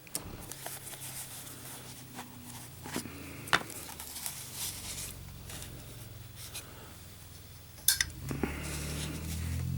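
Handling of a lighter's presentation box as it is opened and the lighter is taken out: light rubbing with a few sharp clicks and taps.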